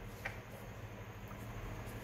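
Quiet room tone: a low, steady background hum with one faint tap about a quarter second in.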